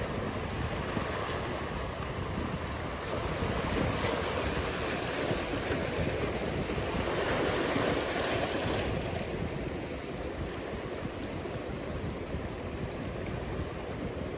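Ocean surf breaking and washing. The noise swells about four seconds in, peaks around eight seconds, then eases off.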